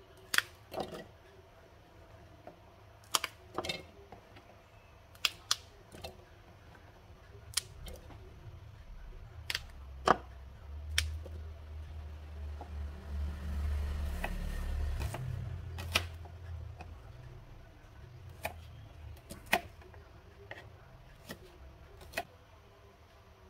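Scattered sharp clicks and taps of kitchen prep: red chilies being stemmed and dropped into a plastic chopper bowl, then a knife cutting shallots and garlic on a plastic cutting board near the end. A low rumble swells in the middle and fades.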